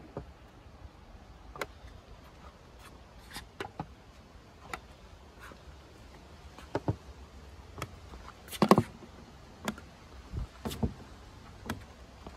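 Probe of a handheld paint thickness gauge tapping against the car's aluminium body panels: scattered light clicks about once a second, with a louder double knock about eight and a half seconds in.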